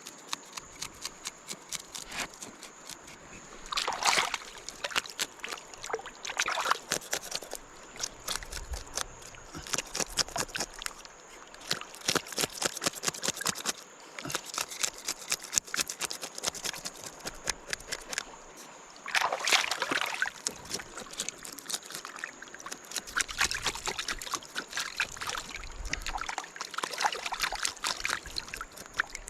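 Water splashing and trickling in quick, irregular sloshes, louder about four seconds in and again around twenty seconds in, over a steady high insect buzz.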